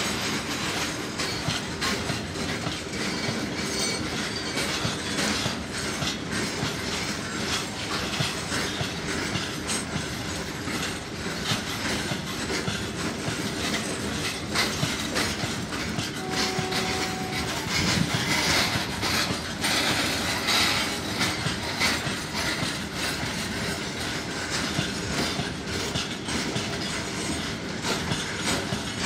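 Freight train's covered goods wagons rolling past, a steady rattle with the rapid clickety-clack of wheels over the rail joints. A short steady whine rises above it about halfway through.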